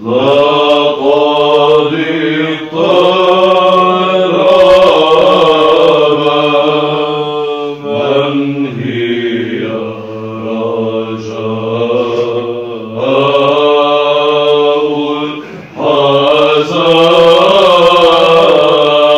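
Male monastic choir chanting a Byzantine hymn in Arabic: a melodic line over a steadily held low drone (the ison), sung in phrases with short pauses between them.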